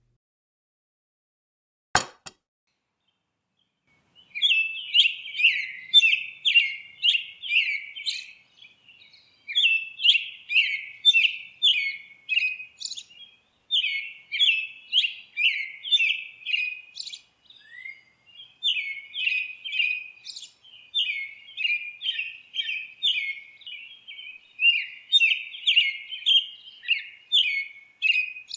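A single sharp click about two seconds in, then runs of high chirping calls at about two a second, with short breaks, from about four seconds in. These chirps serve as the cartoon day geckos' voices and are not a day gecko's real call.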